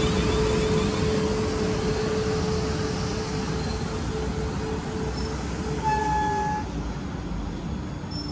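South Western Railway Class 450 Desiro electric multiple unit rolling slowly along the platform as it draws to a stop. A steady rumble and hum fade away about two-thirds of the way through, with a brief squeal about six seconds in.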